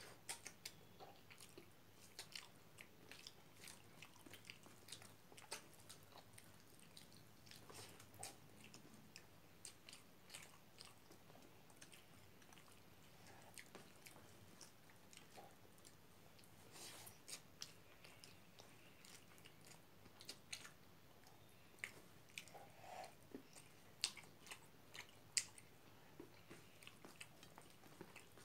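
Quiet eating sounds from rice and pork curry eaten by hand: chewing and wet mouth clicks and smacks scattered throughout, with fingers working rice on the plates. A few sharper clicks stand out in the later part.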